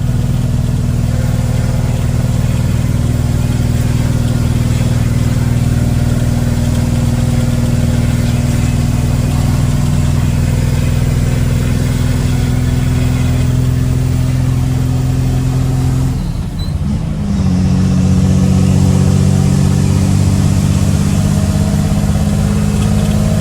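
Ford Cargo dump truck's diesel engine with a short straight-pipe exhaust, heard from inside the cab through a partly open window, pulling in fifth gear up a slight climb: a steady deep rumble. About sixteen seconds in the note breaks off briefly and comes back higher and louder.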